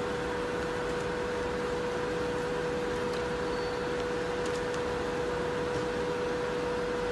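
Plastic-bag packaging and labeling machine running: a steady hum with one constant tone, and a few faint ticks about halfway through.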